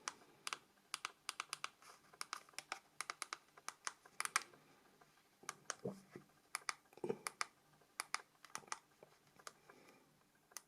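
Nokia 5210 keypad buttons clicking faintly under a thumb, in quick runs of presses with short pauses between, as the phone's menus are stepped through.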